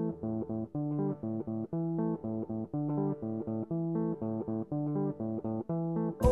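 Background music: a clean plucked guitar line of short repeated notes, about four to five a second, over a low bass line.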